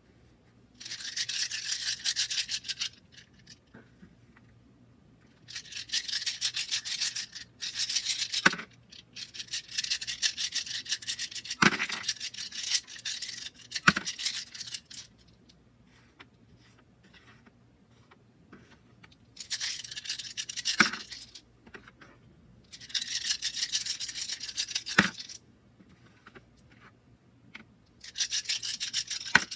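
Hands handling and unwrapping the packaging of a dice set: repeated bursts of rubbing and rustling, each a second or a few long, with short pauses between them and a few sharp clicks as items are set down or knocked.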